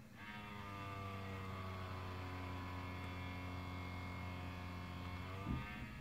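Dell Precision M4700 laptop's cooling fan running with a steady low-pitched drone, with a short knock near the end before it fades out; the uploader thinks the fan is probably scraping against something.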